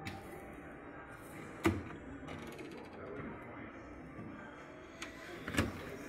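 Plastic clicks and knocks from handling a front-loading washing machine's detergent drawer and door: a sharp click about a second and a half in, a brief run of fine clicking soon after, and another sharp click near the end.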